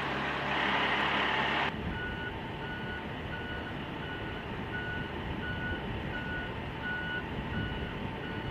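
Military mobile crane's diesel engine running under load, then, about two seconds in, its motion alarm beeping steadily, about one and a half beeps a second, over the engine's rumble while it hoists a load.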